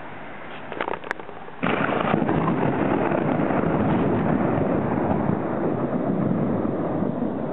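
Thunder: a sudden clap about a second and a half in that breaks into loud, sustained rumbling. Two faint clicks come just before it.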